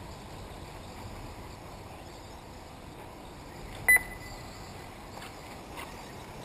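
Steady outdoor background noise with a few faint ticks, broken about four seconds in by one short, sharp high-pitched beep with a click, the loudest sound.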